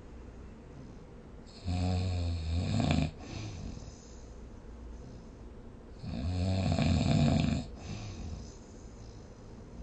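A person snoring: two loud, low, buzzing snores about four seconds apart, each lasting about a second and a half and each followed by a softer breath.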